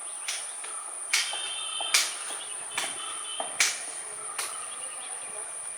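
Steady high-pitched drone of insects, likely crickets, with short sharp noises recurring roughly every second.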